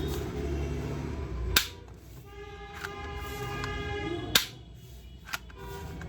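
Plastic toy gun being worked: a low hum, then a few sharp clicks about a second or more apart, with a buzzing electronic tone for about two seconds in between.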